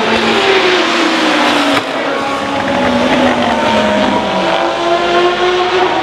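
Open-cockpit prototype race car's engine at high revs passing by, its pitch falling, with a short break in the note about two seconds in. Its pitch rises again from about four and a half seconds in as it accelerates away.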